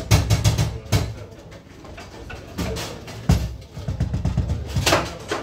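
Foosball table in play: a few sharp knocks of the ball being struck and rods hitting the wooden table, over a low background rumble.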